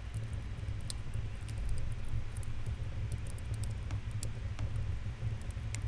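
Crackling fire: a steady low rumble with scattered sharp pops and snaps.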